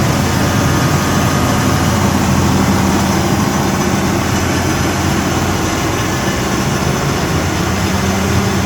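Onan 150DGFA 150 kW generator's diesel engine running steadily at a constant speed, with a low even drone.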